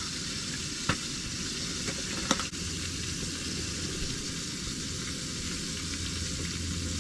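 Battered perch fillets sizzling steadily as they fry in hot canola oil in a pan, with two sharp clinks of a fork against the pan about one and two seconds in.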